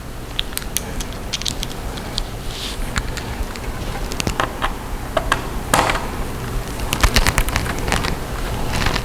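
Small screwdriver and tiny screws clicking and ticking against the plastic casing of a Dell Latitude E5450 laptop as the keyboard screws are taken out: irregular sharp clicks, coming thicker in the second half, over a steady low hum.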